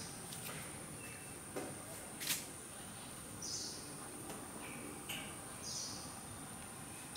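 Quiet ambient background with a steady high hiss, a few short high bird chirps, and a single sharp click about two seconds in.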